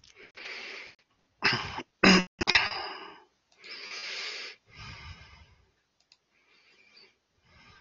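A man coughing a few times into a headset microphone, with sharp, loud coughs about one and a half to two and a half seconds in, then a longer breathy exhale around four seconds in and a few fainter breaths.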